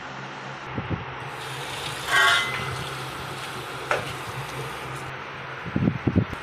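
Water running from a chrome pillar tap into a ceramic table-top wash basin, a steady hiss with a louder burst about two seconds in and a sharp click near four seconds. Low thumps come near the end.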